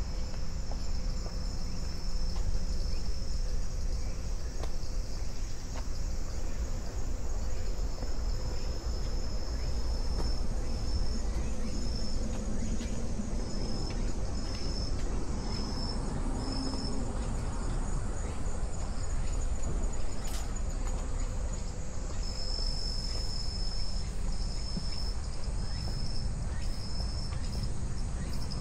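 Insects chirping in the grass, a high thin chirp repeated in short, evenly spaced pulses that stops and starts again, over a steady low rumble.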